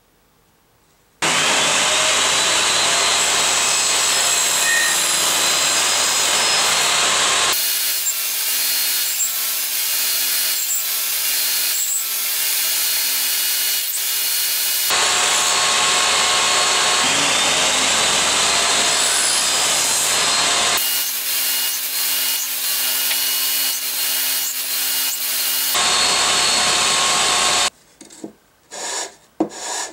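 Compact table saw running and cutting through softwood boards, a loud steady whine in several spliced takes. Near the end it stops and a few quick hand strokes of a tool rasp across the wood.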